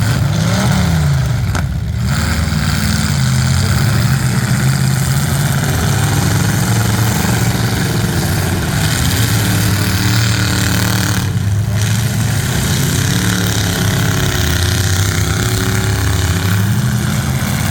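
Demolition derby cars' engines running loudly, their pitch rising and falling as they rev.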